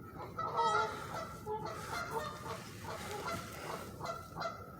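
Geese honking: many short, overlapping calls in a steady chorus.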